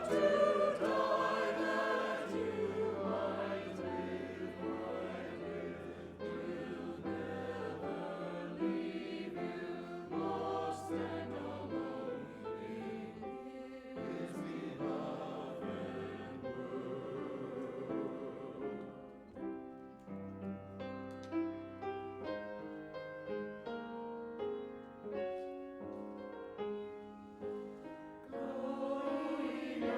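Choir singing a benediction with instrumental accompaniment over sustained bass notes. About two-thirds of the way through the voices drop back to an instrumental passage of separate notes, and the fuller choral sound returns near the end.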